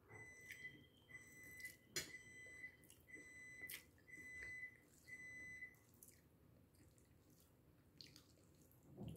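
Faint electronic beeping: about six even beeps of one high tone, roughly one a second, stopping a little past halfway, with a couple of sharp clicks among them.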